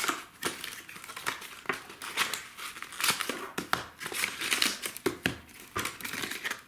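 Plastic wrapping on a hockey trading card box and its packs crinkling and tearing as it is opened by hand, in quick irregular crackles.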